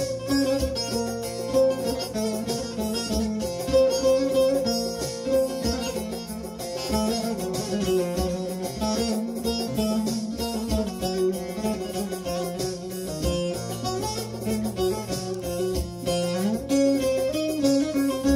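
Bağlama (Turkish long-necked saz) played with a plectrum: an instrumental passage of quick plucked melody notes over a steady low drone.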